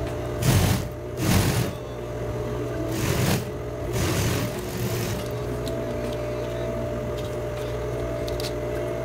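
Electric sewing machine running steadily, sewing stretched elastic into a hem. Four or five short rustles of handled fabric come in the first five seconds over the machine's hum.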